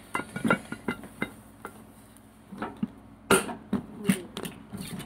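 Hand-held can opener worked around the rim of a metal can: a run of irregular metal clicks and knocks, the loudest about three seconds in.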